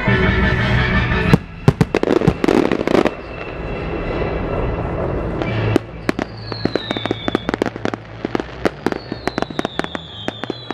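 Aerial fireworks bursting: a cluster of loud bangs in the first few seconds, then, about six seconds in, a rapid run of sharp crackles from glittering crackling stars.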